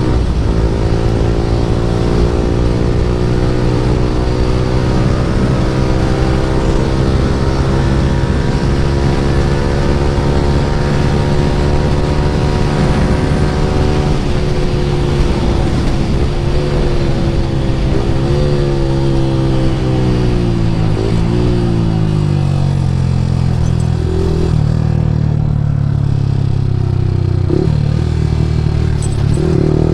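Yamaha R15 V3's single-cylinder engine running through an Akrapovic R9 full-system exhaust while riding. The engine note climbs slowly for about the first half, then drops in several steps as the bike slows down through the gears, with short sharp rises in pitch in the last few seconds.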